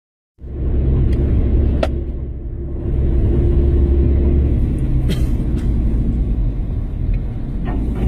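4x4's engine running with a steady low rumble as it drives slowly along a rough dirt track, heard from inside the cab. Several sharp knocks and clicks from the bodywork and stones, about five in all.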